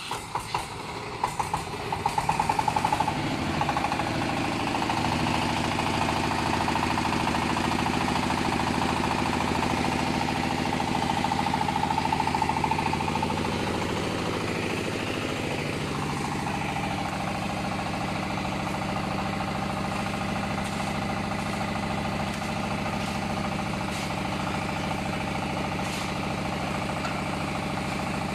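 Single-cylinder diesel engine driving a concrete block machine's hydraulic pump, catching and coming up to speed over the first few seconds with a few sharp knocks, then running steadily. About halfway through, a whine drops in pitch and the running settles a little quieter.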